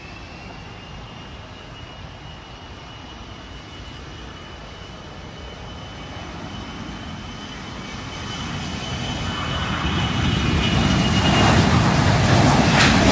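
Business jet turbofan engines with a steady high whine over a low rumble, growing steadily louder over the last few seconds as the jet draws nearer.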